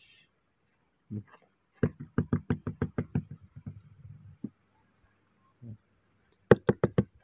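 Knocking on wooden floorboards in quick runs: about a dozen knocks at roughly six a second starting about two seconds in and tailing off, then a louder, faster run of five or six knocks near the end.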